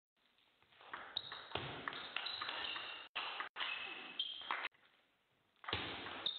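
Table tennis rally: the ball clicking off the paddles and the table in quick succession, with shoes squeaking on the sports-hall floor.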